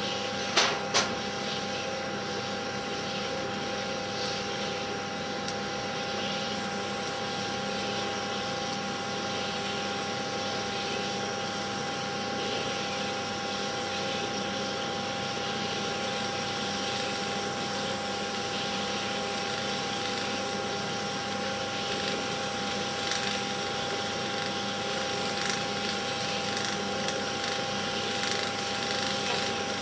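Film projector running, a steady mechanical whir with a constant hum and hiss. Two sharp clicks come about half a second and a second in, and faint ticks are scattered later.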